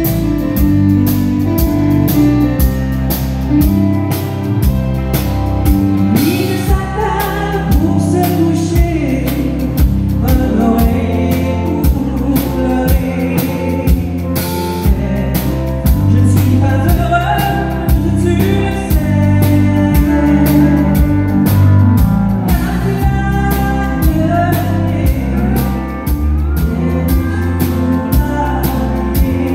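Live country band playing at full volume with a steady drum beat and keyboard, and a woman singing lead into a microphone, her voice coming in a few seconds in.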